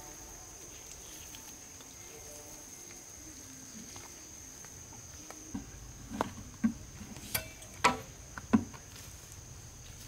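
Steady high-pitched insect drone, like crickets or cicadas, with a handful of sharp knocks in the second half.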